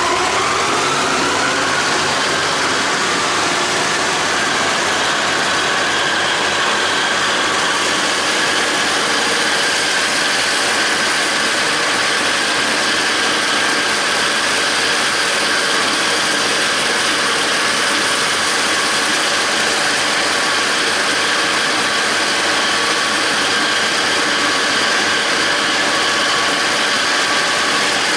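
John Deere 270 disc mower running in standing grass hay behind a John Deere 5320 diesel tractor under load: a steady mechanical whine and clatter from the spinning discs and their gears over the engine. The pitch rises over the first couple of seconds, then holds steady.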